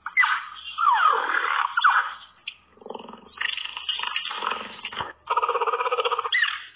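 An animal giving a series of loud, harsh calls, several of them falling in pitch.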